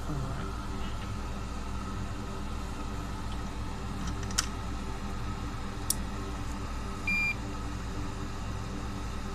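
Air cleaner running with a steady hum. Two small clicks come near the middle, and a short high electronic beep sounds about seven seconds in.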